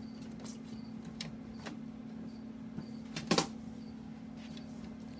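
Feeder crickets chirping faintly, short high chirps every half second or so, over a low steady hum. A few light clicks and one louder knock come about three and a half seconds in.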